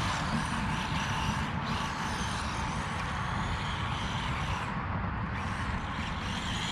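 Haiboxing 1/18 Ratchet RC truck's small electric motor whining steadily as it drives, under a continuous rushing, rumbling noise.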